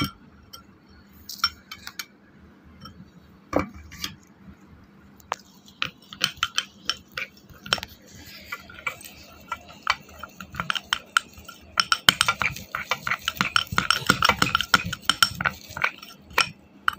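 Steel spoon clinking and scraping against a glass bowl while stirring a thick paste. A few separate knocks at first, then rapid, steady clinking from about six seconds in, busiest near the end.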